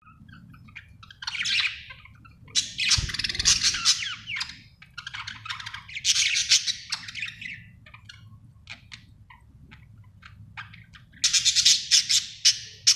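Budgerigar chirping and chattering in rapid bursts of a second or two, with a sparser stretch of short chips near the middle and a dense run again near the end. A steady low hum runs underneath, and there is a brief low thump about three seconds in.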